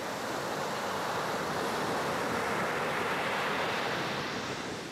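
Ocean surf rushing, swelling toward the middle and easing off near the end.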